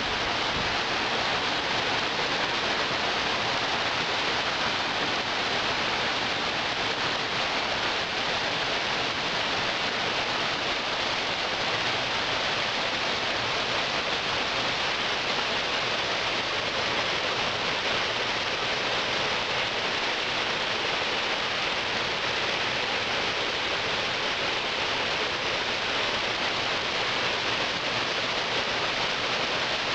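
Steady rushing water of a mountain stream or cascade, an even, unbroken noise.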